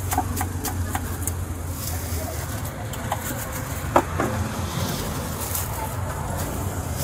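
Knife knocking against a wooden cutting board as pineapple is cut: a few light knocks near the start and one sharper knock about four seconds in, over a steady low hum.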